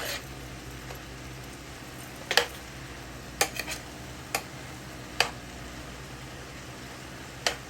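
Pan of chayote and shrimp cooking with a steady low hiss, with about five sharp clicks of a utensil against the pan.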